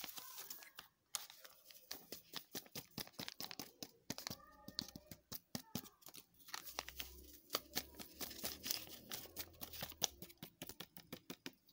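Dry flour mixture being stirred in a bowl by hand: fast, irregular scraping and light ticking of the utensil against the bowl through the powder, kept up throughout.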